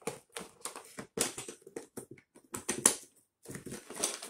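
Hands handling a hard plastic box and a paper sheet: a run of short clicks, knocks and rustles, with a sharper knock about three seconds in.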